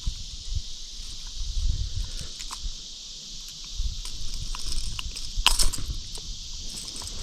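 Steady high insect buzz, with low thumps and a few sharp clicks and rustles over it; the loudest click-and-rustle comes about five and a half seconds in.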